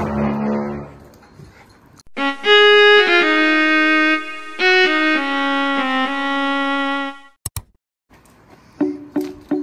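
Intro jingle: after a short low sound at the start, a melody of held, bowed-string-like notes plays for about five seconds, followed by a quick double click, then a light plucked tune with a steady repeating rhythm begins near the end.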